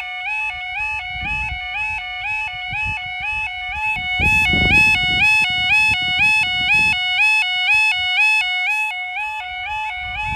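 Level crossing yodel alarm sounding a continuous two-tone warble that steps rapidly up and down between its two pitches, getting louder about four seconds in. Low rumbling noise comes and goes underneath, strongest between about four and seven seconds in.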